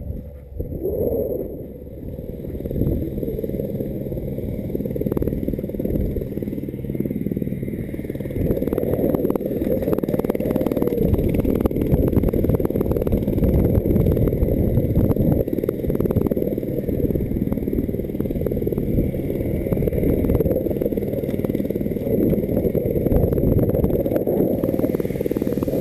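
Wind buffeting the microphone of a handheld action camera: a loud, uneven low rumble, with knocks from the camera being handled.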